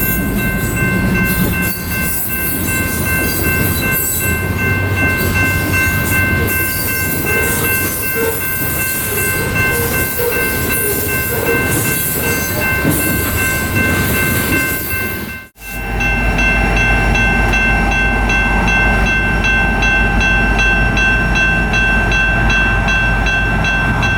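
BNSF freight train running past, a steady rumble of locomotives and rolling cars with several steady high tones over it. About 15 seconds in the sound cuts out briefly and returns with a heavier low locomotive rumble.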